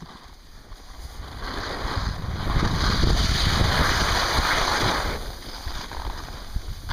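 Wind buffeting the microphone and skis hissing over packed snow during a downhill ski run, growing louder over the first few seconds.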